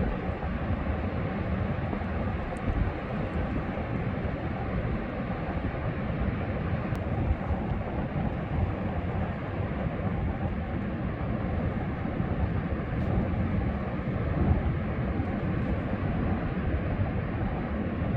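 Steady wind and ocean surf: a continuous rushing noise with a deep rumble, swelling a little now and then.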